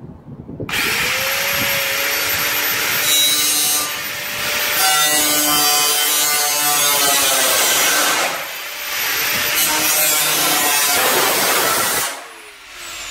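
Angle grinder with a cutting disc spinning up about a second in, then cutting through corrugated iron sheet with a loud, steady metal-cutting whine, easing off briefly twice. Near the end it is switched off and winds down.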